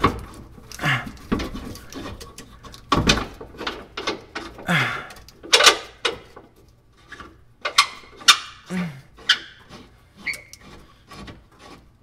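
Irregular metallic knocks, clinks and scrapes as a steel bolt-on trailer hitch is held up against a vehicle's frame and bumper and a bolt is worked into its hole by hand. A few short grunts of effort come in between, and there is a brief thin squeak near the end.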